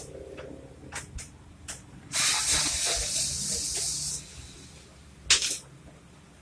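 A hiss of spray lasting about two seconds, set among short sharp clicks and taps of handling, with one loud click near the end.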